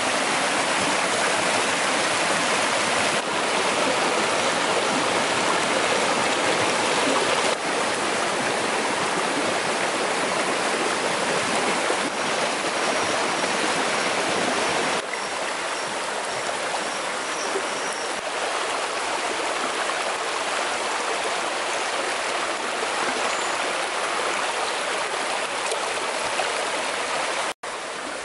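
Shallow rocky stream rushing over stones: a steady rush of water with no letup. It steps down in level abruptly a few times and cuts out briefly near the end.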